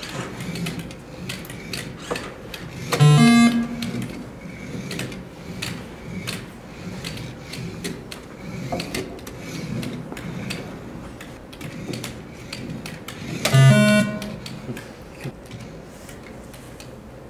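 Electronic sound effects from the obstacle-course game's amplified speaker: two short, loud, pitched tones, about three seconds in and again near the end, over faint clicking between them.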